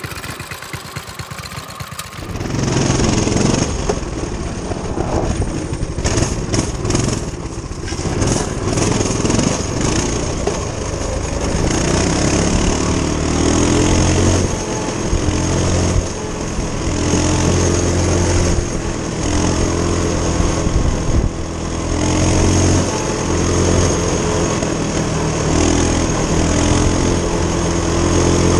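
Coleman CT200U-EX minibike's 196cc single-cylinder four-stroke engine running. It is quieter at first; from about two seconds in it runs under load as the bike is ridden, its note rising and falling with the throttle.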